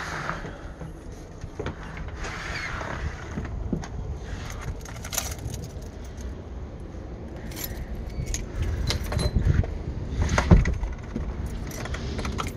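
Metal jingling and clinking, with scattered clicks and knocks over a low rumble; the loudest knock comes about ten and a half seconds in.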